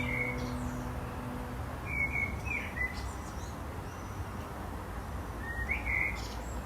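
Small birds chirping in short bursts of a few notes, three times, over a steady outdoor hiss. The last acoustic guitar chord dies away at the start.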